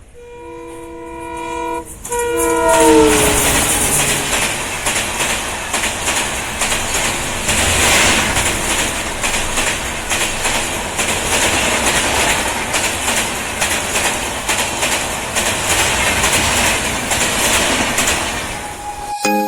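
WDM3D diesel-electric locomotive horn sounding two multi-note blasts as the express approaches at speed, the second dropping in pitch as the locomotive passes. Then a long rush of coaches going by, with a rapid clatter of wheels over rail joints.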